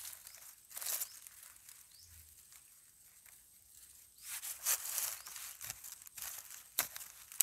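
A gloved hand scraping and scooping dry soil, rustling and crunching dry grass and leaf litter while digging out a wild yam. It comes in several short scratchy bursts, the longest about four to five seconds in.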